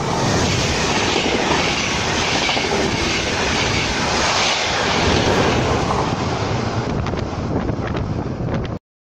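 Locomotive-hauled Intercity passenger train, a cab control car leading, passing close by at speed: a loud steady rush of the coaches with wheels clattering over the rail joints. The sound cuts off abruptly near the end.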